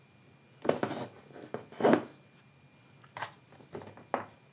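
Hands handling a Cat 5 cable and small tools on a wooden workbench: a few short, irregular rustles and clacks, the loudest about two seconds in.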